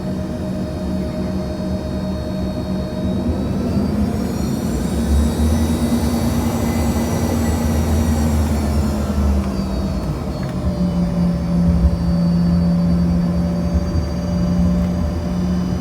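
American Eagle regional jet's engines at takeoff: a steady whine and rumble that swell as the aircraft passes. The tones drop in pitch about ten seconds in.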